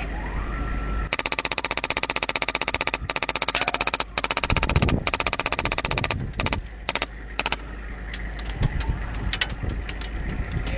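Airsoft gun firing on full auto: a fast, even rattle of shots that starts about a second in as one long burst, then breaks into a string of shorter bursts with brief pauses.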